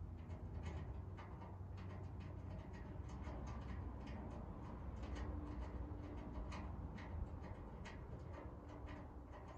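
Rapid, irregular metallic clicks and taps as a bolt and lock nut are tightened on the mounting bracket of an RV under-step storage box, over a steady low rumble.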